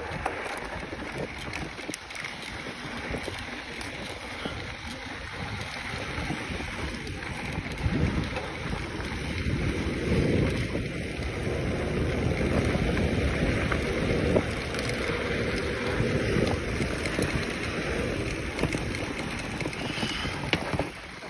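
Wind buffeting the microphone and a mountain bike's knobby tyres rolling over a sandy dirt trail during a fast descent, with a few faint clicks from the bike. The wind noise grows louder about eight seconds in.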